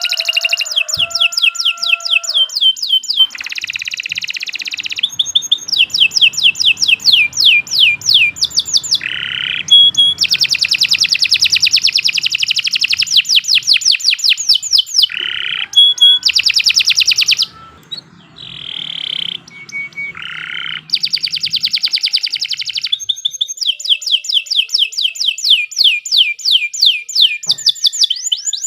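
Domestic canary singing: long, fast trills of rapidly repeated high chirping notes, broken by short pauses and a few lower, rougher notes.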